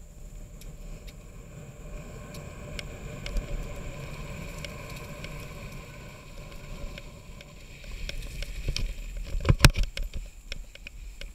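Mountain bike rolling along a trail, its tyres giving a low rumble while the bike rattles and clicks over the surface. About nine and a half seconds in comes a quick cluster of loud knocks as it jolts over rough gravel.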